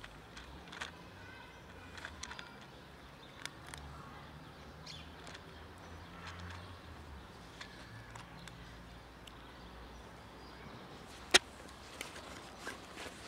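A cat eating dry kibble from a plastic tub: scattered small crisp crunches and clicks, with one sharp click near the end louder than the rest.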